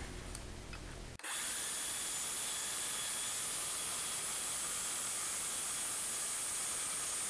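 A small power-tool motor running steadily, heard as an even hiss with a faint high whine, starting suddenly about a second in and held at one low level.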